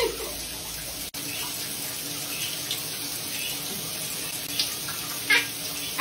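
Shower spray running steadily onto a wet monk parakeet on its shower perch, with two short high calls from the bird near the end.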